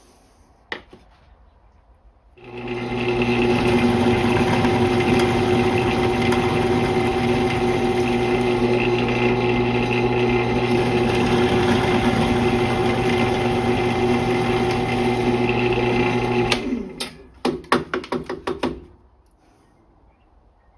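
Electric drill running a 1/2-inch spade bit through brake band lining into a wooden block. The motor starts about two seconds in, runs steadily with a constant hum for about fourteen seconds, then stops and is followed by a short run of knocks and clatter.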